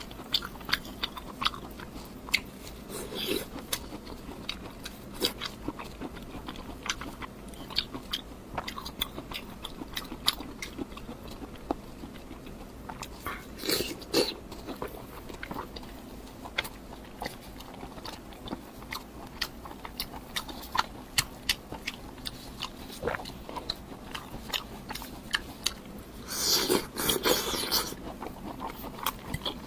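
Close-miked eating: chewing and biting with many sharp crunchy clicks, and a louder crunching stretch of about a second and a half near the end.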